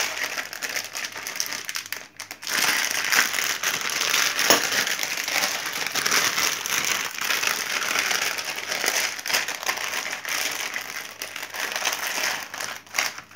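Foil-plastic blind-bag packet crinkling as hands tear it open and handle it, a continuous crackle with a brief pause about two seconds in.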